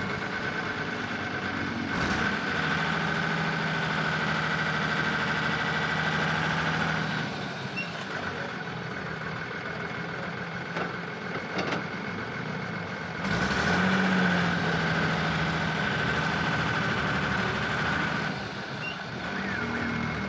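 Truck's diesel engine running, raised twice for several seconds as the truck rolls its wheel onto a tyre lying on the ground to press it, with a steady high whine over it.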